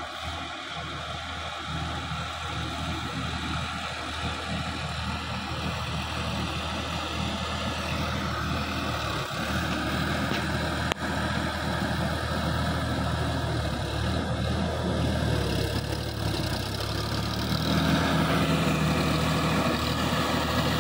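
Sonalika DI 50 RX tractor's diesel engine running steadily under load as it drags a rotary tiller through paddy mud, puddling a flooded rice field. It grows louder towards the end as the tractor comes closer.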